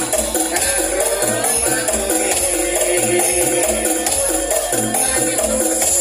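Loud music with a steady beat: a repeating bass line under rhythmic melodic notes and constant bright, jingling percussion.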